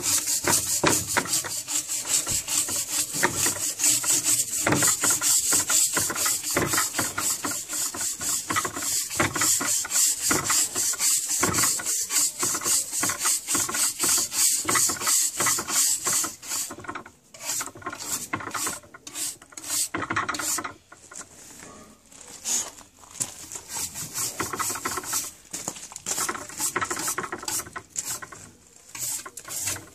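Hand wire brush scrubbed back and forth along a charred wooden beam, scraping off the loose burnt char after shou sugi ban (yakisugi) burning. Fast, even strokes, several a second, for about the first half; the strokes then turn slower, quieter and more irregular.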